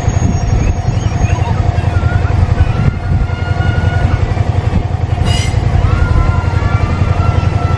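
Level-crossing warning bell ringing steadily, with its flashing lights on, as the 923-type Doctor Yellow Shinkansen inspection train creeps toward the crossing, over a steady low rumble.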